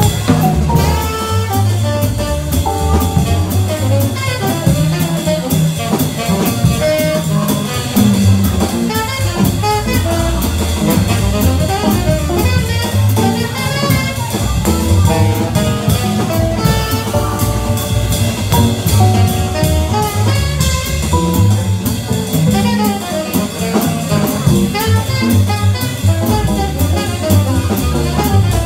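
Live small-group jazz: a tenor saxophone plays the lead line over guitar, double bass and drum kit with steady cymbal time.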